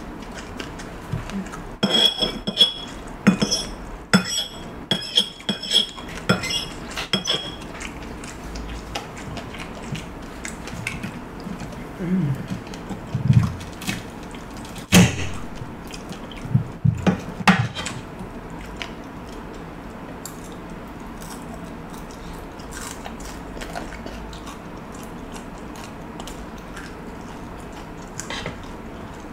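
Metal fork and spoon clinking and scraping against a plate of rice, a quick run of ringing clinks in the first seven seconds or so, followed by close-up chewing and mouth sounds of eating, loudest around the middle.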